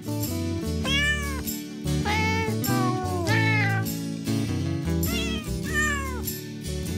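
Cat meows set to music: a string of meows, each rising and falling in pitch, over a steady musical backing, in the manner of a novelty Christmas song.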